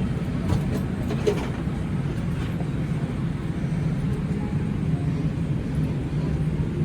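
A steady low mechanical rumble, like a vehicle or machinery running, with a few faint clicks and knocks over it.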